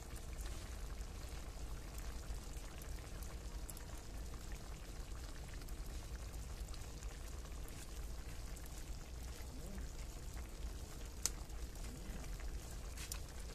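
Chicken-feet adobo sauce simmering in a wide aluminium pan over a wood fire, with liquid squeezed from a sachet trickling into it. A couple of sharp clicks sound late on.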